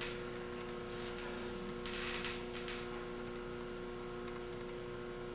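Steady electrical mains hum and hiss on the recording, with a brief soft rustle about two seconds in.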